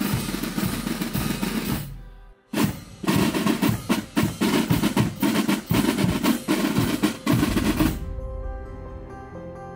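Military corps of drums: side drums playing a roll that dies away, then after a short pause a loud beaten passage of side drums and bass drum with sharp strokes. About eight seconds in the drumming cuts off and soft music with held notes takes over.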